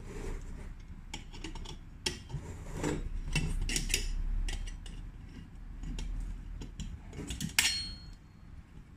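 Metal parts of a Coleman 533 camp stove's burner clinking, tapping and scraping as they are handled and taken apart. The loudest is a sharp metal clink with a brief ring about seven and a half seconds in.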